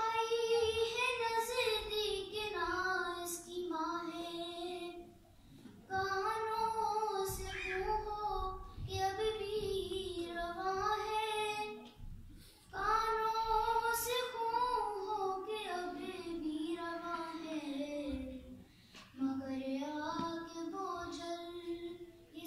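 A woman chanting a devotional Urdu salam solo, with no instruments. She sings in long melodic phrases of about six seconds, each sinking in pitch toward its end, with a short breath between phrases.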